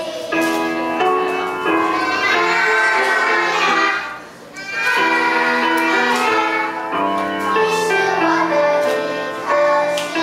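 A group of young children singing a song together over keyboard backing music. The music breaks off briefly about four seconds in, then carries on.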